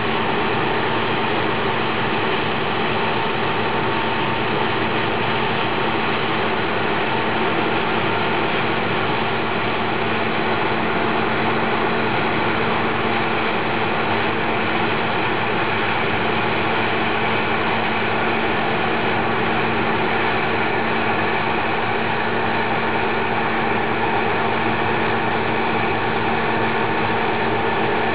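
Claas Lexion combine harvester running steadily while harvesting grain: a constant engine and machinery hum with a couple of held tones.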